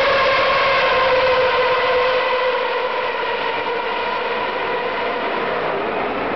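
The field of 2.4-litre V8 Formula One cars heard from a distance as a steady, high-pitched engine drone, the pitch dipping slightly and the level dropping a little about two and a half seconds in.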